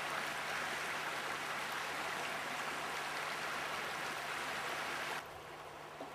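Flowing river water rushing over rapids, a steady even rush that drops off sharply about five seconds in, with a faint low steady hum beneath.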